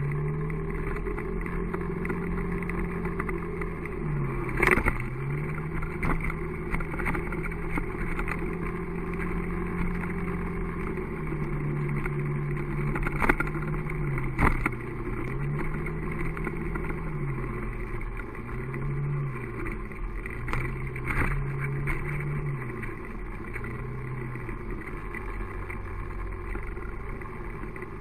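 A vehicle's engine running at low speed, its pitch stepping up and down again and again as the throttle is opened and eased in slow stop-and-go driving. A few sharp knocks or clicks from bumps or rattles sound through it.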